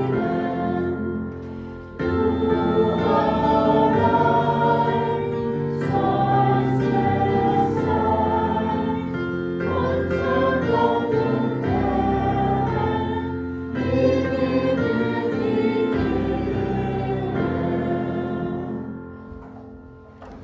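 Congregation singing a hymn together, accompanied by an electric piano, in phrases with short breaks between them; the singing fades out and the hymn ends near the end.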